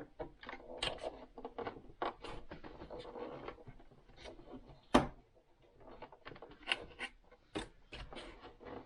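Handling and prying at the snap-together plastic casing of a Singer sewing machine: scattered clicks, taps and rubbing, with one sharp click about five seconds in.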